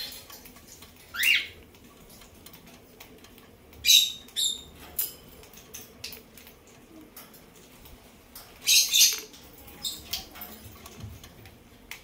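Senegal parrot gnawing a coconut shell with its beak: a run of small scraping, crunching clicks, broken by a few louder, sharper bursts about a second in, around four seconds and near nine seconds.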